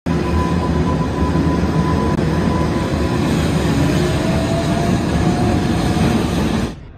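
Electric locomotive running along the railway: a steady rumble of wheels on the rails, with a high whine that slowly rises in pitch about halfway through. The sound fades out near the end.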